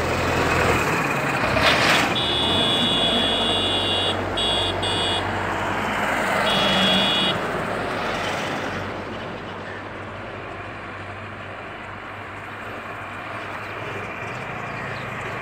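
Steady road and wind noise from a moving vehicle. A high-pitched horn beeps several times between about two and seven seconds in: one long beep, two short ones, then another. The road noise eases off in the second half.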